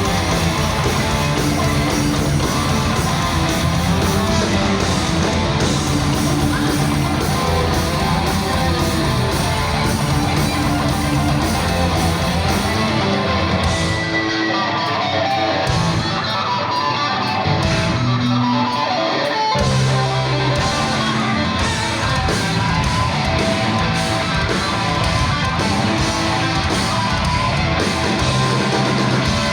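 Heavy metal band playing live: electric guitars over bass and drums. About halfway through, the drums and bass drop out for a few seconds, leaving the guitars, before the full band comes back in.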